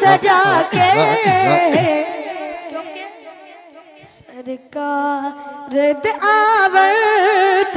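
A boy's solo voice singing a Punjabi naat into a microphone, unaccompanied. The singing fades down about two seconds in and comes back around five seconds in with long held notes.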